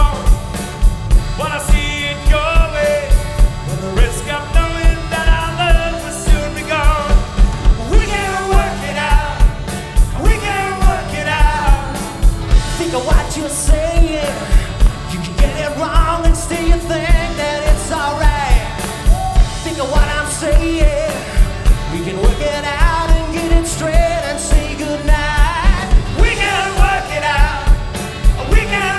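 A band playing a 1960s-style rock and pop song with male vocals over a steady, driving kick-drum beat.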